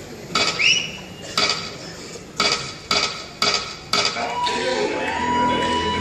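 Six sharp metallic clangs with a ringing tail, the last four coming about twice a second, as the opening of a dance track over a hall's speakers. About four seconds in, the music itself starts with a long held tone and low notes beneath.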